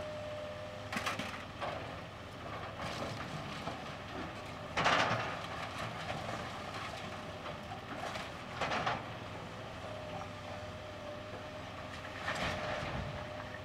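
Deere 470G excavator running with a steady engine hum and whine, broken by several bursts of clatter, the loudest about five seconds in, as it loads debris into a dump truck.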